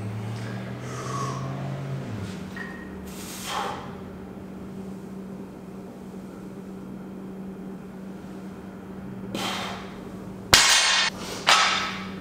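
A loaded barbell with iron plates is set down on a wooden lifting platform, giving two loud clanks about a second apart near the end. Before them come a couple of breathy exhales from the lifter during slow sumo deadlift reps.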